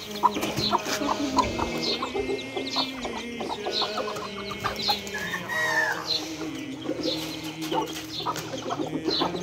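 Chickens clucking low while chicks peep in many short high chirps, with one longer arching call about five seconds in.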